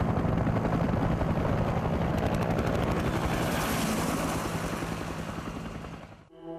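Helicopter rotors beating in a fast, steady chop, mixed with gunfire, as battle sound on a war documentary's soundtrack. The sound fades and cuts off near the end.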